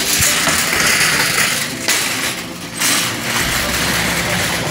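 Empty wire shopping cart rattling as it is pushed along, a steady hissing clatter that drops out briefly twice, about two and three seconds in.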